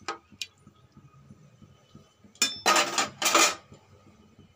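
Spatula stirring rice and water in a pressure cooker pot: a couple of faint clicks at the start, then a loud burst of scraping and clattering against the pot about two and a half seconds in.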